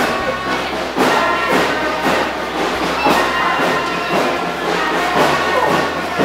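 Marching band music: held wind-instrument notes over a steady drumbeat about twice a second.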